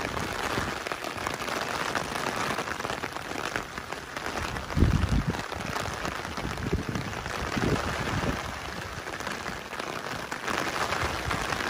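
Heavy rain falling steadily, an even hiss of drops. A few low thuds come through about five seconds in and again near eight seconds.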